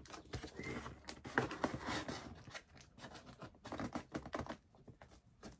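Scissors snipping and slicing through the plastic wrap on a cardboard box, a run of irregular small clicks and crinkly rasps.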